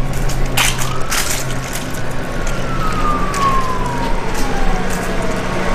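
Police car siren wailing: one slow rise and long fall in pitch, then starting to rise again near the end, over a low steady hum and a few sharp clicks.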